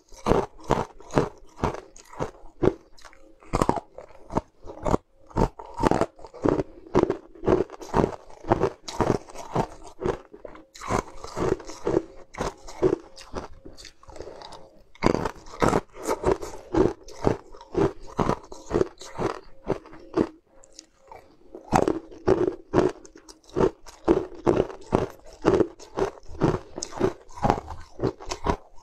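Pieces of colored ice being bitten and crunched between the teeth, a quick string of sharp crunches with brief lulls about halfway and two-thirds of the way through.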